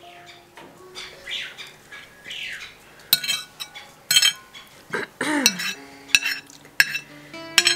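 Metal cutlery scraping and clinking against a ceramic dinner plate as the last of the food is scraped up. A few squeaky scrapes come first, then about six sharp, ringing clinks in the second half.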